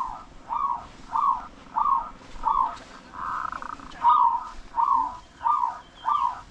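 A bird calling over and over: short calls that rise and fall in pitch, repeated about every two-thirds of a second, with one longer, even-pitched call about three seconds in.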